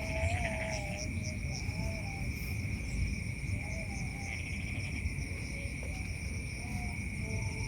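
Night chorus of crickets and other insects: steady high-pitched trilling in several layers. There is a low rumbling noise underneath and short wavering calls in the middle range.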